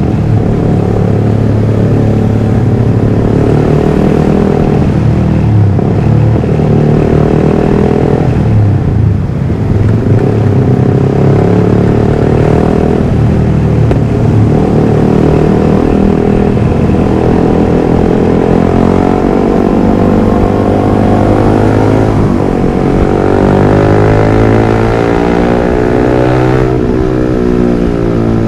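Yamaha R15 V3's 155 cc single-cylinder engine through a Villan MP1 aftermarket exhaust, revved up and down over and over, its pitch rising and falling.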